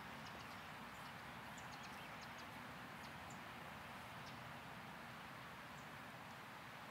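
Faint outdoor ambience: a steady background hush with short, high bird chirps scattered throughout.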